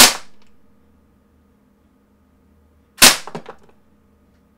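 KWC Mini UZI CO2 blowback BB gun fired on semi-automatic: two single shots about three seconds apart, each followed by a brief clatter.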